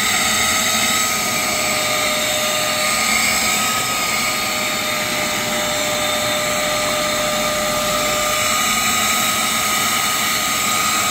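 Wet vac running steadily with a high motor whine, sucking through a clear plastic hand nozzle dragged over a damp, cleaner-soaked car carpet.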